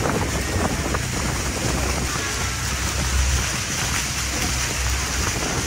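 Steady rushing noise aboard a moving tour boat: wind and churning water over a low engine rumble, with no single event standing out.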